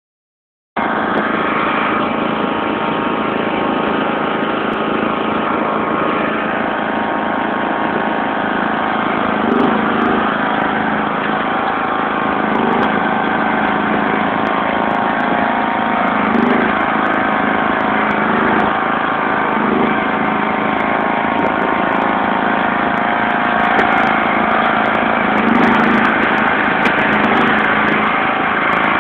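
John Deere LX176 lawn tractor's 14 hp overhead-valve engine running steadily under load while the tractor pushes snow with its front blade. The engine note swells briefly every few seconds.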